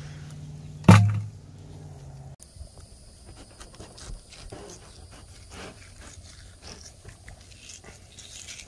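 A loud thump about a second in, then faint scraping and ticking of a fillet knife cutting into a red grouper on a table, over a steady high whine.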